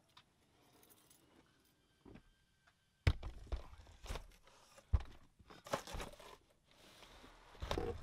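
A hard plastic equipment case being loaded into a car's cargo area: after about three seconds of near quiet, a string of knocks and thumps as the case is set down and shifted, with the loudest at about three seconds in and at the very end.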